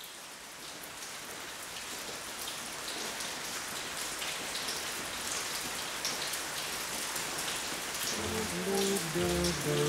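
Heavy rain falling, a dense hiss with scattered drop ticks, growing steadily louder. Music comes in about eight seconds in.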